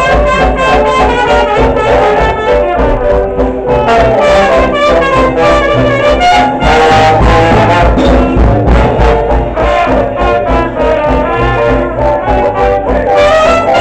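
Traditional New Orleans-style jazz band playing live. Trumpet, trombone and clarinet play together over string bass, piano, banjo and drums keeping a steady beat.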